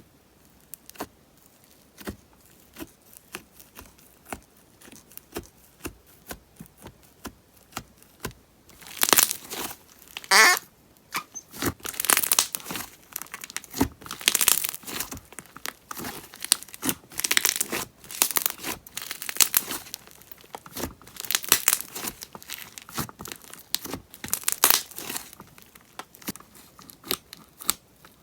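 Thick wood clay slime being handled, popping trapped air bubbles with sharp crackling snaps. There are scattered single pops at first, then dense crackling from about nine seconds in until about twenty-five seconds, then scattered pops again.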